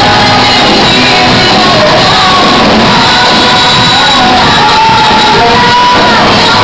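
Loud gospel worship music with a voice singing long held notes that slide between pitches, over a steady instrumental backing.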